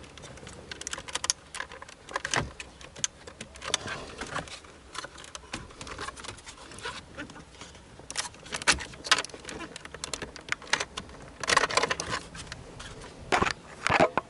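Irregular plastic clicks and rattles as the wiring connectors on a 2016 Ford Fusion's radio trim panel are worked loose by hand, coming in several short flurries, the densest near the end.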